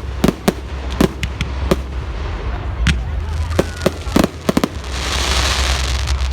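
Fireworks going off in quick, irregular succession, sharp bangs and cracks one after another. About five seconds in, a hissing crackle swells for a second or so.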